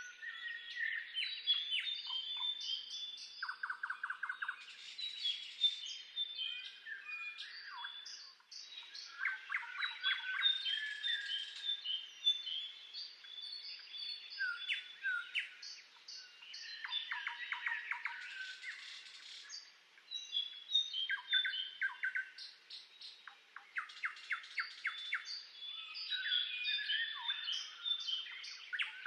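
Several songbirds singing at once: a busy, overlapping stream of high chirps and whistled notes, broken by fast rattling trills every few seconds.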